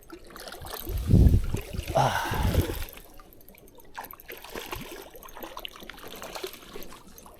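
Water splashing as a hooked trout thrashes at the surface beside a kayak, loudest between about one and three seconds in, then fainter trickling and lapping water.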